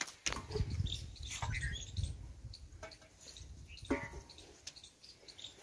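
Low, uneven rumbling noise on the microphone while people walk across bare earth, with faint bird chirps in the background. About four seconds in there is a short metallic clink with a brief ring as a vessel on a wooden stand is handled.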